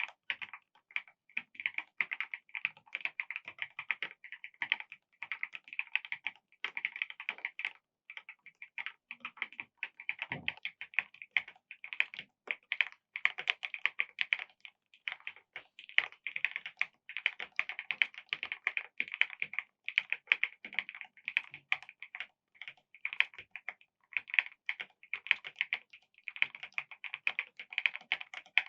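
Typing on a mechanical keyboard fitted with the Rainy Froggy Day keycap set: a fast, continuous run of key clicks with a few short pauses.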